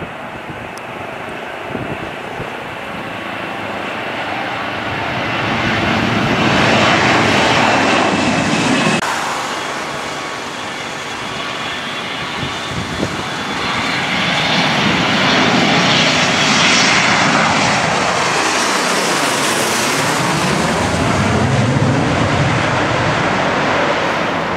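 Jet airliner engines on the runway, heard in several cuts. A twin-engine jet lands and grows loud toward a peak about seven seconds in, then breaks off at a cut. An MD-80-series jet's rear-mounted engines then build up and swell as it runs down the runway for takeoff, gliding down in pitch as it passes, and give way to a lower, steadier engine rumble near the end.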